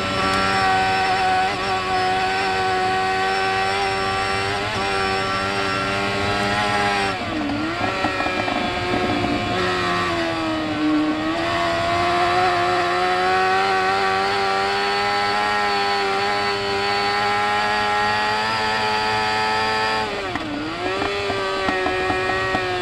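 Superbike racing motorcycle engine heard from onboard, running flat out at high revs with a steady high-pitched note. The note drops and climbs back three times: about a third of the way in, around halfway, and near the end.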